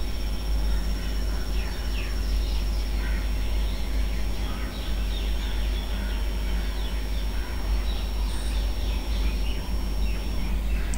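Steady low hum with a faint high steady whine, and faint short chirps scattered throughout.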